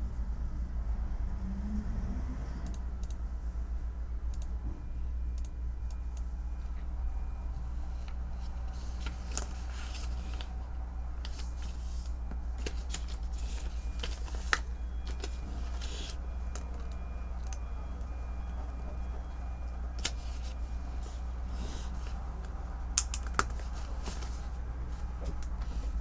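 Typing on a computer keyboard: irregular keystroke clicks in short runs, with a few louder single key strikes, over a steady low background rumble.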